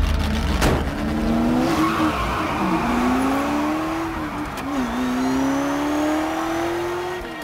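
Race car engine accelerating hard through the gears: the pitch climbs steadily and drops sharply at each upshift, about two, five and seven seconds in. A sharp hit sounds about half a second in.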